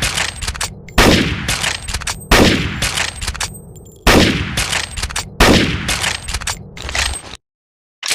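Gewehr 98 bolt-action rifle firing: four loud shots about a second and a half apart, each with a long echoing tail broken by sharp clicks.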